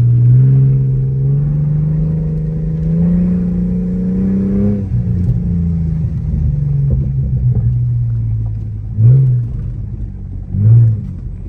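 A 2001 Mercedes E320's 3.2-litre V6 pulling under acceleration, heard from inside the cabin: the engine note climbs steadily for about five seconds, then drops sharply and eases down as the car cruises. Two short, loud bursts stand out near the end.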